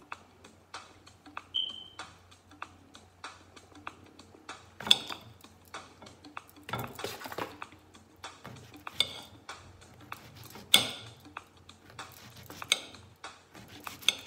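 Knife slicing a zucchini into rounds, the blade tapping down on the board with each cut: sharp clicks about twice a second, with a few louder knocks.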